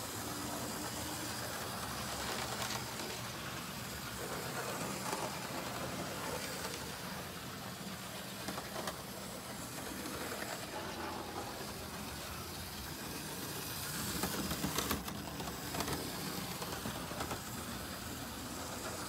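OO-gauge model train running on the layout's track: a steady whir of its small electric motor and wheels, with a few faint clicks.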